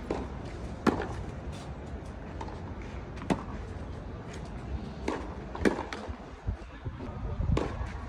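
Tennis ball being hit back and forth in a volley drill on a clay court: sharp pops of ball on racket strings, with softer bounces between, every second or two.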